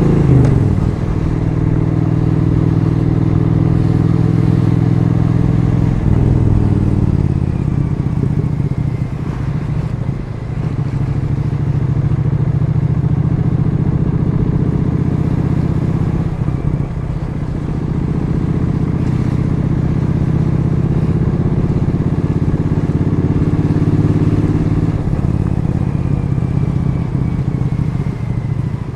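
Triumph Street Twin 900's parallel-twin engine running under way, holding a steady pitch for long stretches. The revs fall away near the start and again about six seconds in, with shorter dips around ten, seventeen and twenty-five seconds.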